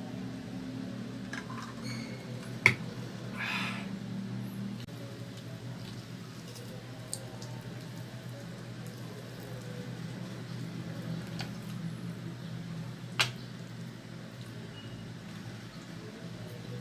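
Close-up eating sounds of someone chewing chicken: soft, wet, squishy mouth noises with two sharp clicks, one about three seconds in and one near thirteen seconds, over a steady low hum.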